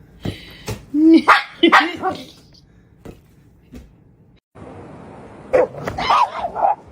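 A dog barking and yelping in two bursts, about a second in and again near the end, with a few sharp clicks before the first.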